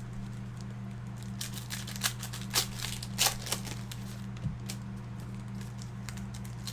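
Card box packaging being handled, a run of crinkles and crackles about a second in that thins out after a few seconds, over a steady low electrical hum.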